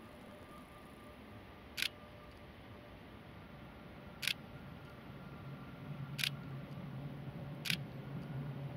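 Camera shutter clicking four times at uneven intervals, sharp single clicks. A low steady hum comes in about halfway through.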